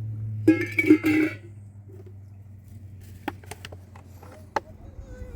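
A brief strummed chord on a plucked string instrument about half a second in, lasting about a second, followed by a few scattered sharp clicks.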